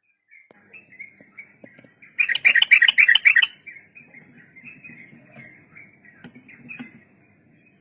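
Sooty-headed bulbul (trucukan) singing: scattered short chirps, with a loud fast run of about nine repeated notes, the rolling 'ropel' phrase, about two seconds in lasting just over a second.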